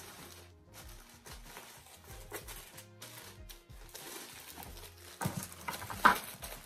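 Plastic bubble-wrap sheet crinkling and rustling as it is pressed down over strawberries in a cardboard box, with louder crackles about five to six seconds in. Background music with a low bass line plays underneath.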